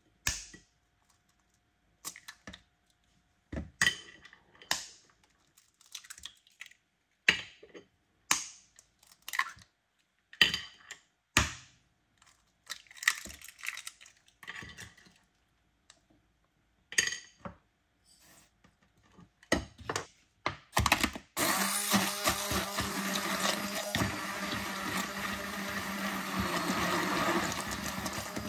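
A string of separate short knocks and taps from kitchen work at a bowl. About three quarters of the way through, an electric food processor starts and runs steadily, mixing eggs, sugar and cottage cheese.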